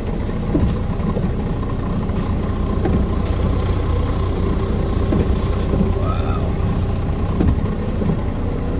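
Heavy rain and hail coming down: a dense steady hiss scattered with small sharp ticks of hailstones striking, over a steady low rumble.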